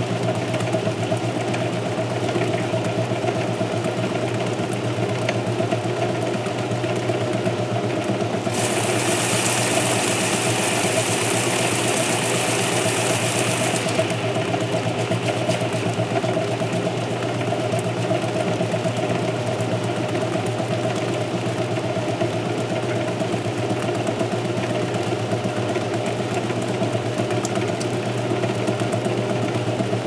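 Vintage Sears Kenmore belt-drive washing machine in its agitate cycle: a steady motor and transmission hum with the agitator churning water and clothes. A hiss joins for about five seconds, starting roughly eight seconds in.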